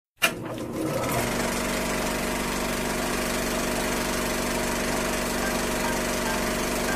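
A sharp click, then a machine starts up and settles into a steady hum of several tones about a second in.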